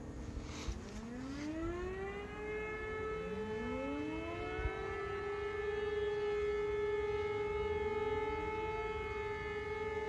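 Civil defence sirens on their monthly test alarm, starting up one after another: each rises in pitch and settles into a steady tone, the first about a second in, a second about three seconds in, and a third near the end.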